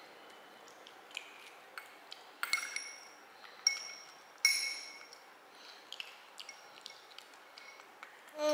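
Metal spoon clinking and scraping against a ceramic bowl: a string of light taps, each with a short ringing note, the loudest about two and a half, three and a half and four and a half seconds in. A brief vocal sound right at the end.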